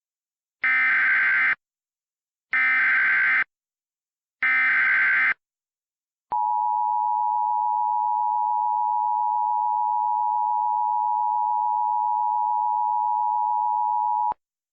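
Emergency Alert System activation: three short bursts of SAME header data tones, each just under a second long and evenly spaced, then the steady two-tone EAS attention signal held for about eight seconds and cut off sharply. The tones mark the start of an emergency alert broadcast.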